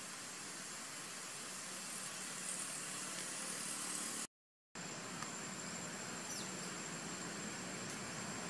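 Steady outdoor background hiss with a thin, high, steady whine over it, broken by a moment of dead silence about four seconds in.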